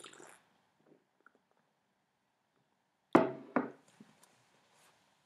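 A short sip from a ceramic mug, then the mug set down on a table about three seconds in: two knocks about half a second apart, the first the louder.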